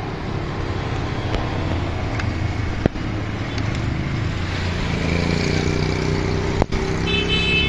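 Street traffic: a motor vehicle engine running, growing louder from about five seconds in, with two sharp knocks along the way.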